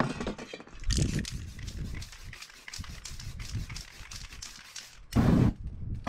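Aerosol spray paint can hissing in short repeated bursts over a paper stencil. About five seconds in comes a louder, fuller whoosh as the paint fumes on the stencil catch fire.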